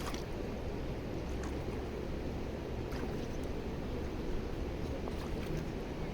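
Steady rushing of river water flowing, with a few faint clicks.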